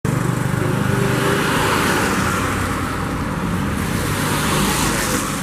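Tour bus engine running steadily as the bus goes down a steep slope: a low drone under a steady rushing hiss.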